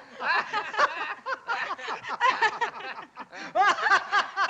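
Several people laughing heartily together in quick, repeated bursts after a song has ended.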